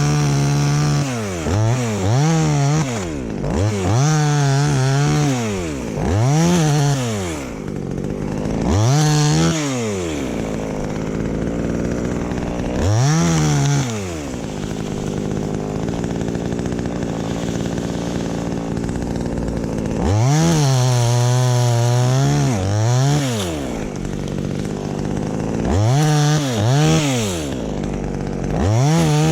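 Two-stroke chainsaw revved in repeated bursts, its pitch climbing and falling each time, dropping back to idle between them. A longer stretch of steady idling comes past the middle.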